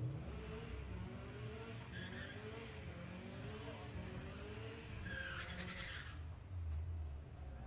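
Cars accelerating hard down a drag strip: an engine note that rises again and again as the car changes up through the gears, over a low rumble.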